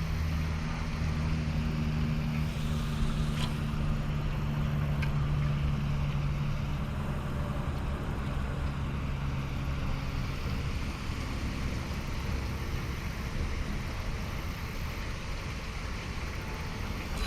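Steady low hum of a motor vehicle's engine, fading out about ten seconds in, over steady outdoor background noise.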